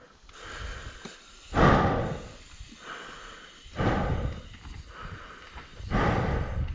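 Mountain biker breathing hard while riding: three heavy, hissing exhales about two seconds apart, over a low rumble of tyres and trail.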